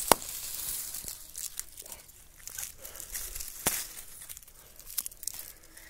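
Dry leaves, grass and brinjal plant stems rustling and crackling as a hand pushes through the base of the plant. A sharp click comes just as it begins, and a few fainter clicks follow later.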